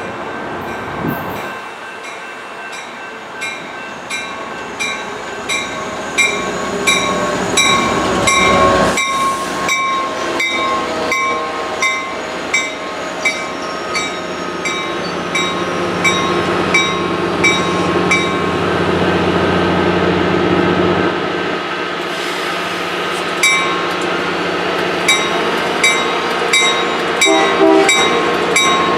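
A train rolling past, its wheels clicking in a steady rhythm over rail joints above a continuous rumble that builds slightly.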